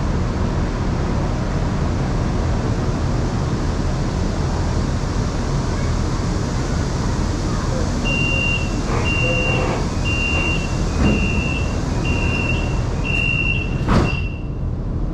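Steady rumble inside a Shanghai Metro Line 2 train. About halfway through, an electronic warning tone starts beeping about once a second, seven times, and a sharp knock comes near the end.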